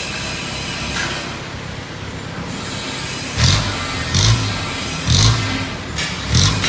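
Diesel engine of a small Thai 'E-taen' dump truck running steadily, then revved in short throttle blips roughly once a second from about halfway in as the truck rolls forward.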